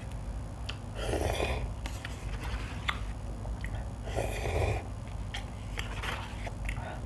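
A person slurping instant cup noodles, twice: once about a second in and again about four seconds in. Between the slurps come light clicks and scrapes of a fork stirring in the cup.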